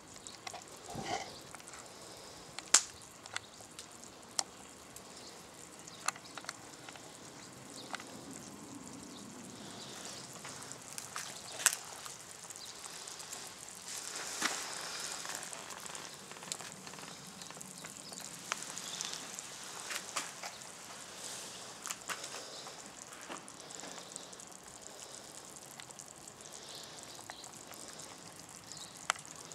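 Small wood fire crackling under a steaming cast-iron stew pot: scattered sharp pops, a few of them louder, over a steady low hiss.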